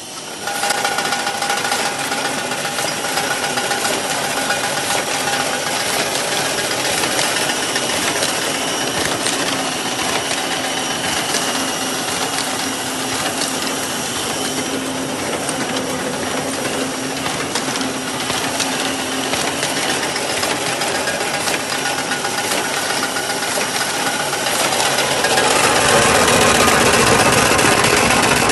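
Brehmer 381/4 book thread-sewing machine with its feeder running, a steady mechanical clatter of many fast clicks from its sewing and feeding mechanism. It comes in about half a second in and grows louder near the end.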